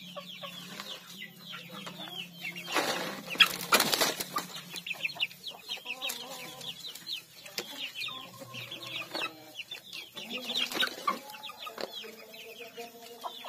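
Young village chickens peeping constantly in quick, falling high chirps, mixed with clucking. A louder rustling burst comes about three seconds in, and a shorter one near eleven seconds.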